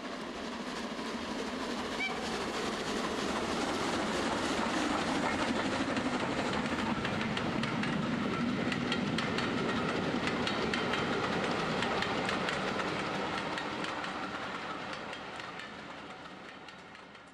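A train running on track, with a dense, fast clicking of wheels over the rails above a steady rumble. It grows louder over the first few seconds, holds, then fades away near the end.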